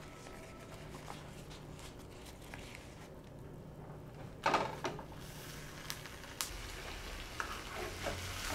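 Banana leaf rustling softly as a fish parcel is folded shut, then a knock as the parcel is set down in a metal griddle pan about four and a half seconds in. Near the end, a few light clicks of metal tongs handling the leaf parcels on the griddle.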